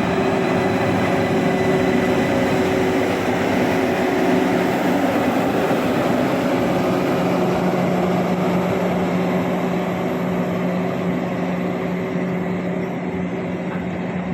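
Train running past on the tracks: a steady, loud rumble with a few steady humming tones, easing off slightly toward the end.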